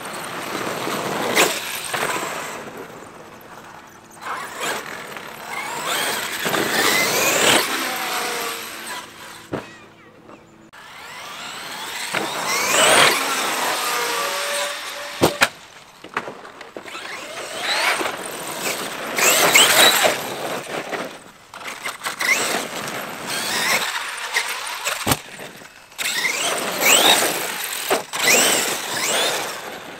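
Large electric RC monster truck running flat out over dirt jumps: its motor whines up and down in pitch with each burst of throttle. A few sharp knocks come as it lands, one right after a big jump about halfway through.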